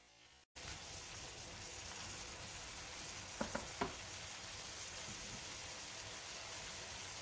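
Garlic, onion, ginger and cherry tomatoes sautéing in oil in a steel wok: a steady sizzle, with three quick light knocks a little past halfway.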